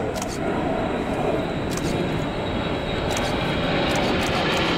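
Twin turbofan engines of an A-10 Thunderbolt II passing low overhead: a steady jet rush with a thin high whine, growing a little louder toward the end.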